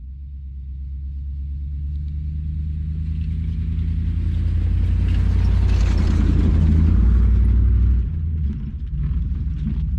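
Chevrolet Suburban driving up a snowy dirt track, its engine running low and steady and growing louder as it approaches, then easing off about eight seconds in.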